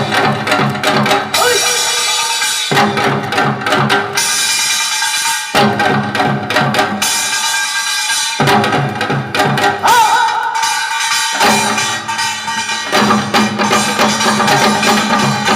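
Instrumental music with a steady drum beat under sustained melodic tones.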